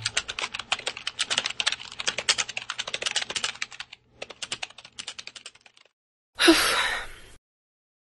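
Rapid typing on a laptop keyboard, fast keystrokes that thin out after about four seconds and stop near six seconds. About six and a half seconds in comes a breathy hiss lasting about a second.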